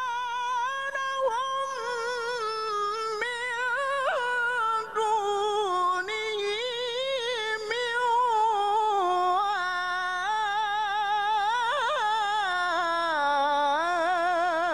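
A male qari reciting the Qur'an in the melodic mujawwad style: one long, unbroken high-pitched phrase with quick wavering ornaments.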